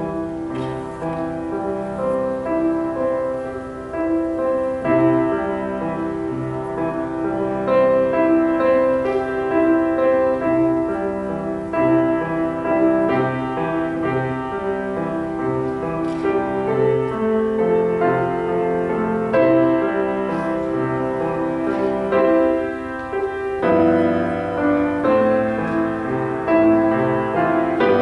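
Grand piano played solo: a continuous flow of melody notes over a moving accompaniment, with deeper bass notes coming in about three-quarters of the way through.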